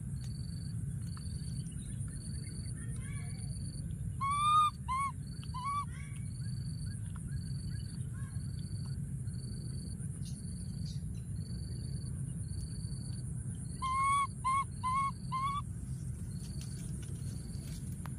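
A baby macaque calling: two runs of four short, high, arching cries, the first about four seconds in and the second about fourteen seconds in. Behind them a high chirp repeats steadily about twice a second over a low rumble.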